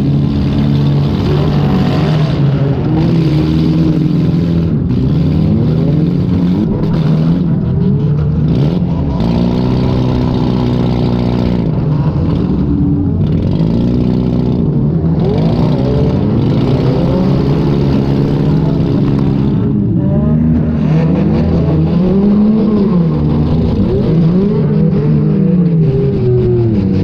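Demolition derby car's engine, heard from on board, revving up and dropping back again and again over a steady engine drone.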